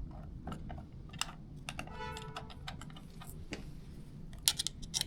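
Scattered light clicks and taps of metal lock hardware and screws being handled while the inside mount plate of a keypad door lock is fitted. There is a brief squeak about two seconds in and a quick run of louder clicks near the end.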